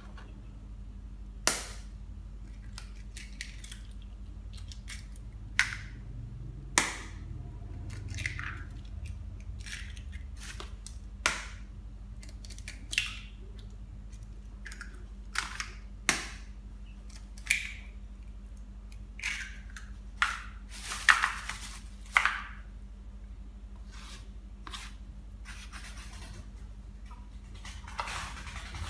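Chicken eggs being cracked open one after another: about a dozen sharp taps and cracks of eggshell at irregular intervals, with a cluster of the loudest about three-quarters of the way through.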